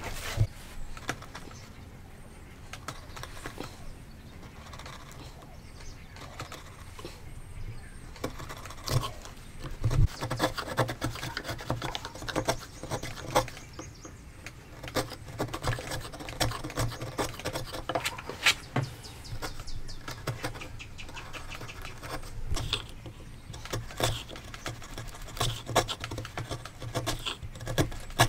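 Steel hand chisel cutting out a mortise in a timber beam: irregular clicks and knocks as the edge is driven in and levers and pares the wood, with chips splitting free. The knocks come thicker from about eight seconds in.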